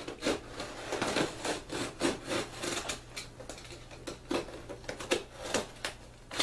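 Cardboard box and its packing material being handled and pulled open: irregular rustling and scraping with short knocks.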